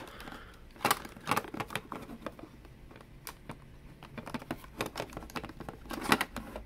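Scattered sharp clicks and light rustles of a plastic toy advent deck and its cards being handled, bunched about a second in and again near the end.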